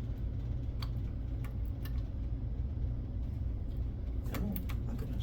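A few scattered light clicks and taps from handling the CPU fan cable and connector on the motherboard, over a steady low hum.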